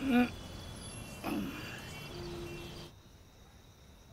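Night ambience of insects chirring, crickets, heard as a steady thin high-pitched drone, with a brief voiced sound at the very start. About three seconds in the ambience cuts out suddenly, leaving quiet room tone.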